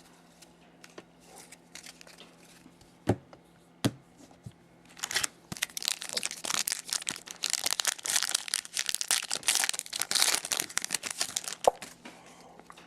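A few sharp clicks, then several seconds of crinkling and tearing as a hockey card pack wrapper is torn open and handled.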